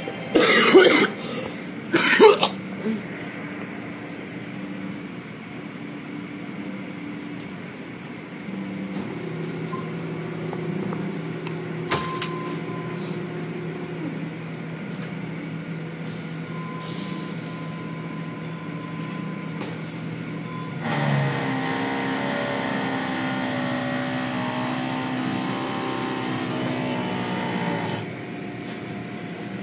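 Automatic car wash machinery running, heard from inside the car: a steady motor hum that grows louder and fuller for about seven seconds two-thirds of the way through. Two short, loud bursts of noise come in the first few seconds.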